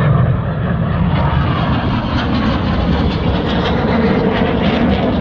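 Red Arrows BAE Hawk T1 jets with Rolls-Royce Turbomeca Adour turbofans flying a display, heard as a steady, loud rush of jet noise.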